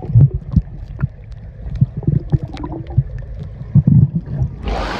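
Muffled underwater sound of a camera held below the surface of a pool: dull thumps and gurgling of moving water. Near the end the camera breaks the surface, and the open-air hiss of the pool suddenly returns.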